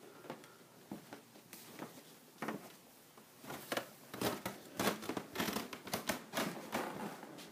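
Irregular footsteps and rustling handling noise from a hand-held camera being carried, sparse at first and much busier and louder from about halfway until near the end.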